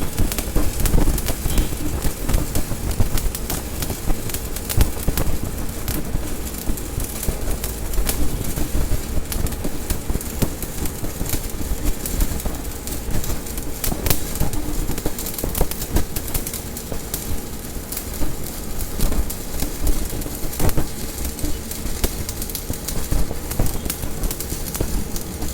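Stick (shielded metal) arc welding on thin sheet about 1 mm thick at around 55 amps: the arc gives a steady, dense crackle throughout, with a faint steady hum underneath.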